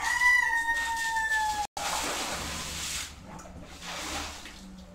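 A rooster crowing, its long held note ending a little under two seconds in. Then comes about a second of loud hissing noise, and near the end a softer rustle of handling as the bicycle frame is picked up.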